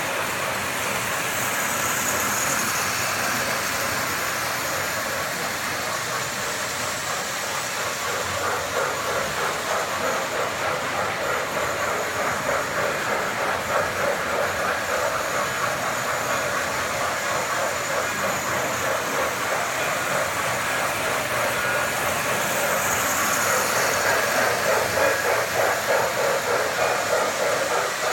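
Model trains running on a layout: a steady whirring rumble of wheels and motors on metal track, with a hiss and a regular rapid clacking beat that grows louder near the end as a train passes close.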